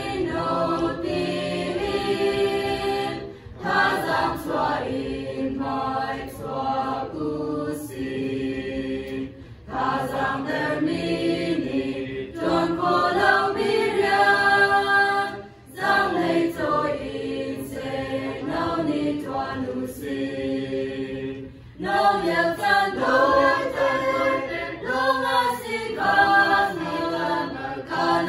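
A small mixed choir of young voices singing a hymn unaccompanied, in phrases of about six seconds with short breaks for breath between them.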